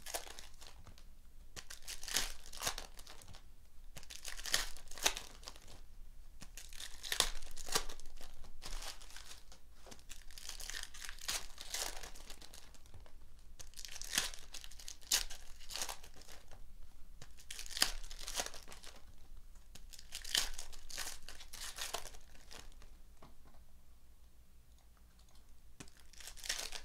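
Foil trading-card pack wrappers being torn open and crinkled in the hands, over and over in short repeated spells.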